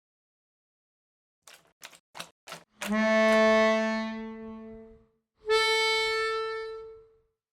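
Music: four quick taps, then two long held instrument notes, the second an octave higher, each fading out.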